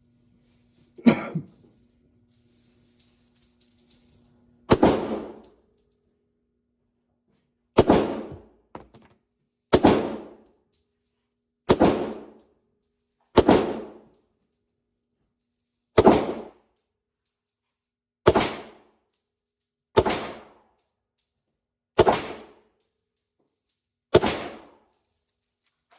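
Beretta 92S 9 mm pistol firing ten shots in slow, steady fire, about one every two seconds, each report trailing off in the room's echo. A single sharper snap comes about a second in, before the string of shots.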